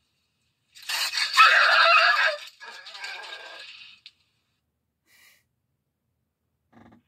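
A cat and dog fighting: harsh screeching and hissing, loud for about a second and a half, then weaker scuffling noise until a short click about four seconds in.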